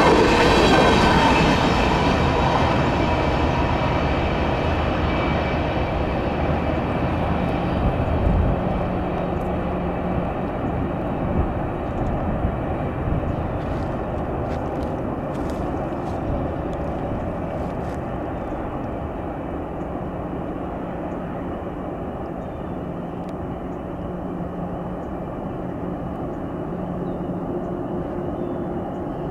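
CSX freight trains rolling past on the rails: a steady rumble of wheels and cars, with a high wheel squeal that dies away in the first couple of seconds and a few sharp clicks around the middle. The whole sound slowly fades as the trains move off, leaving a low steady hum.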